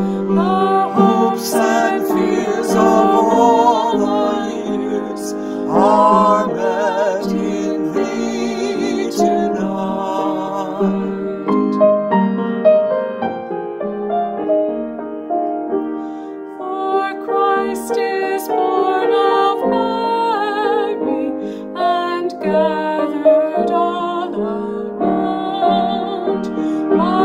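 A woman and a man singing a Christmas carol together with piano accompaniment, their voices held in long notes with vibrato.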